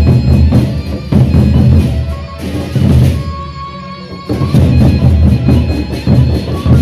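Lombok gendang beleq ensemble playing: the big barrel drums are beaten with sticks in loud, driving passages, with cymbals clashing above. The drumming breaks off briefly twice while a held tone carries on.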